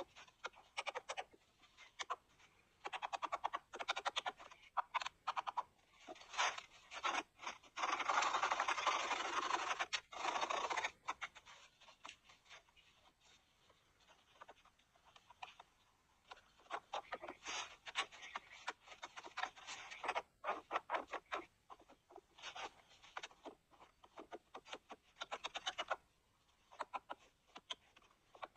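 Irregular scratching and scraping, made of many short clicks, with a longer continuous rasp about eight seconds in that lasts some three seconds.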